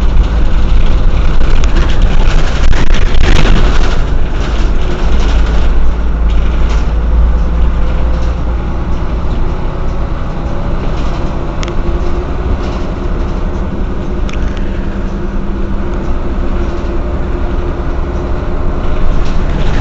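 Mercedes-Benz O 405 N city bus engine running under way with a steady low rumble, loudest in a surge about three seconds in. After that its note rises and falls gently as the bus changes speed.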